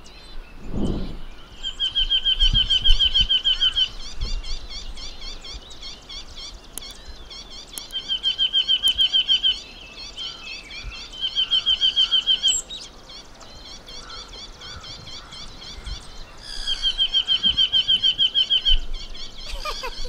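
Yunnan nuthatch calling: four bouts of rapid, evenly repeated high notes, each lasting one to two and a half seconds, with faint high ticking between the bouts.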